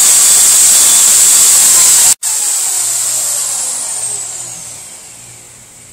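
Corded electric drill spinning an engine valve at full speed: a loud, steady high whine with hiss. About two seconds in it cuts off and the motor winds down, its whine falling in pitch and fading.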